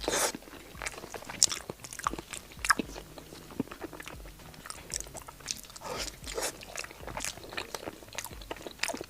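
Biting and chewing crispy fried skewer food, with irregular crunches throughout.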